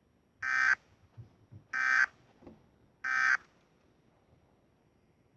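Emergency Alert System end-of-message tones: three short, identical bursts of screechy digital data, each about a third of a second long and roughly 1.3 seconds apart. They signal that the alert broadcast is over.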